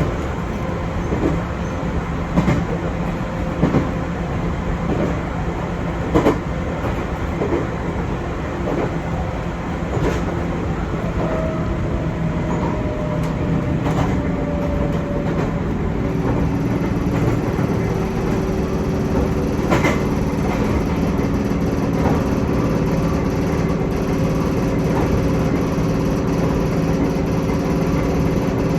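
Chichibu Railway 6000-series electric train running, heard from inside the car: a steady rumble of wheels on rail with regular clacks over rail joints. About halfway through the clacks thin out and a steadier hum takes over.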